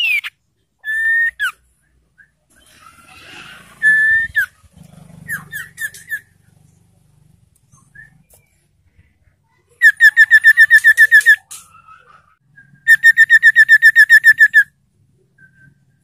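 Iora (sirtu) singing: a few short whistled notes and slurs, then two loud, rapid trills of repeated whistled notes, each about a second and a half long.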